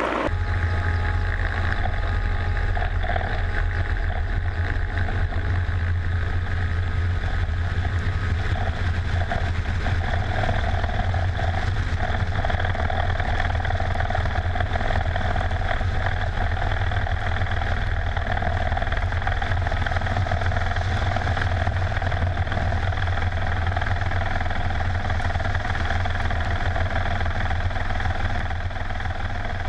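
Mil Mi-24 helicopter in fast, low flight, heard from a camera mounted on its outside: a steady low drone of rotor and turbine engines with a fainter steady whine above it, starting abruptly.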